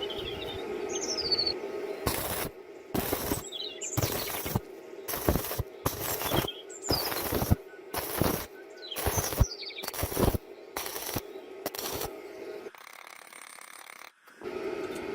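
Electric arc welding crackling in about a dozen short bursts, each under half a second, as the arc is struck and broken repeatedly; the bursts stop a little past the middle. Birds chirp faintly over a steady hum.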